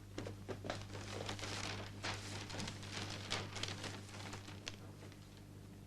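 Faint scattered rustles and light clicks over a steady low hum.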